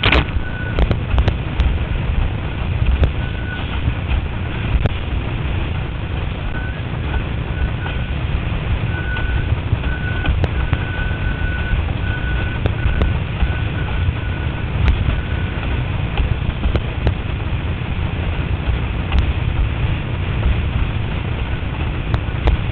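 Wind buffeting the microphone and water rushing and slapping under an F2 windsurf board planing over chop. A faint high whistle comes and goes in short dashes through the middle.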